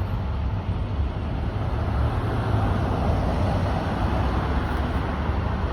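Steady low rumble of a car running, with no breaks or changes.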